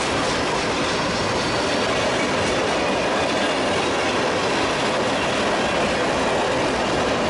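Cars of a mixed manifest freight train rolling past at close range: steady noise of steel wheels running over the rails.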